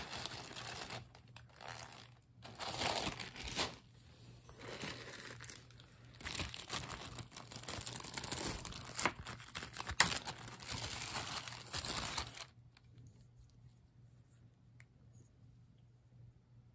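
Plastic zip-top bag crinkling in irregular bursts as it is handled and opened to take a piece of jewelry out. The crinkling stops about twelve seconds in.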